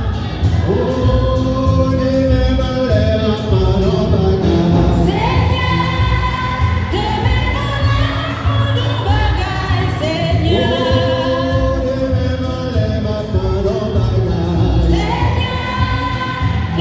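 Choir singing a French-language church hymn to instrumental accompaniment with a steady beat.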